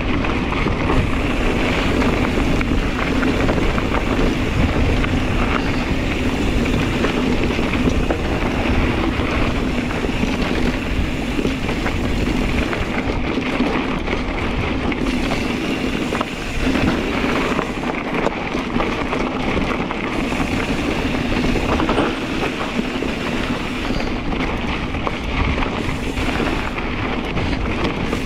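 Kona Process 134 mountain bike riding along a dirt trail: tyres rolling over the ground and the bike rattling, under steady wind noise on the microphone.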